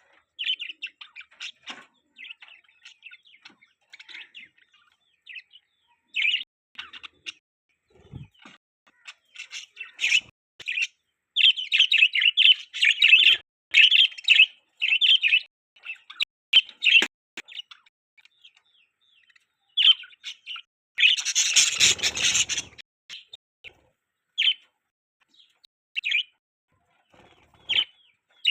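Budgerigars chirping in quick, scattered bursts of short high notes, busiest about a third of the way in. One louder, harsher burst comes about three-quarters of the way through.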